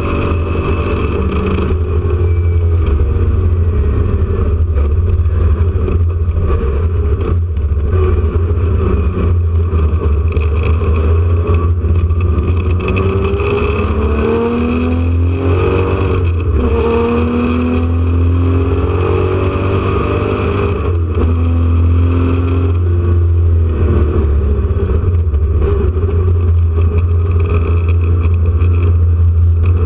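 Porsche 911 RSR's air-cooled flat-six racing engine, heard from inside the car at race speed, over a steady low drone. The revs climb and drop repeatedly through the gears, with a run of rising sweeps around the middle.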